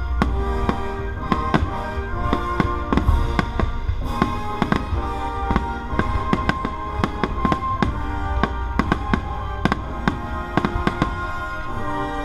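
Aerial fireworks bursting in quick succession, many sharp bangs and crackles over a deep rumble, set against orchestral music with held tones.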